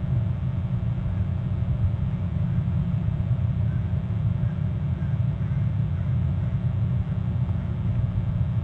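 A steady low rumble with a faint even hiss above it, without any distinct events.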